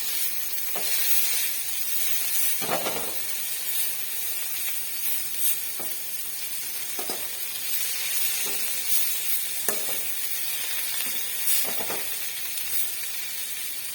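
Mosu mosu keerai leaves sizzling steadily as they sauté in hot coconut oil. Now and then a spatula scrapes or knocks against the pan as they are stirred, most strongly about three seconds in.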